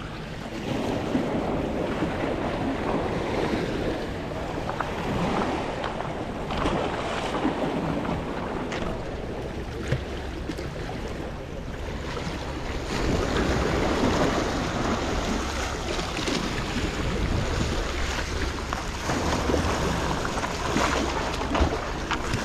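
Sea surf washing and splashing against jetty rocks, swelling and easing in surges, with wind buffeting the microphone.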